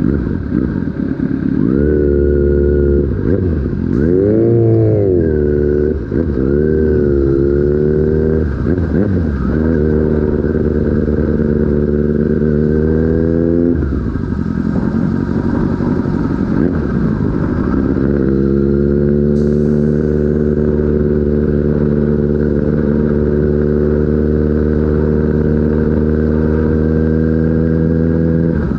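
Sport motorcycle engine running at speed, its revs rising and falling several times, then climbing and dropping off sharply about fourteen seconds in, then held fairly steady and slowly rising.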